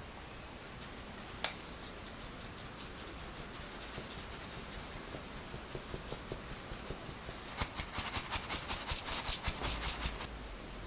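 Powdered sugar and almond flour being sifted through a fine metal mesh sieve: quick, repeated scratchy strokes as the powder is worked through the mesh, with one sharper tap on the sieve. The strokes come faster and closer together near the end, then stop.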